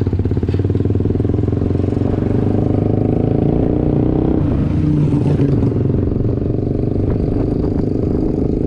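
A motor engine running steadily, swelling a little about five seconds in.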